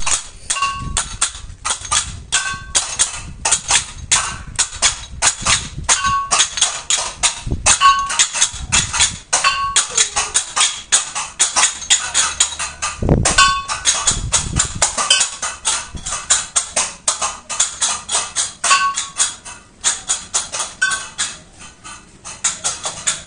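Balinese ceng-ceng cymbals clashing in a fast, unbroken rattle, with a small gong (kelenang) ringing out every second or so. A heavy thump sounds about halfway through.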